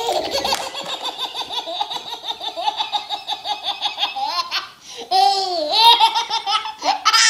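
A baby laughing hard: a long unbroken run of rapid belly-laugh pulses for about four seconds, then several higher, drawn-out squealing laughs.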